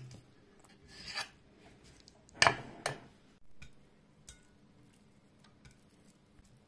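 A few sharp clicks and knocks from a knife and meat being handled on a stone cutting board and a plate. The loudest knock comes about two and a half seconds in, with another just after it. Faint ticks follow over low room tone.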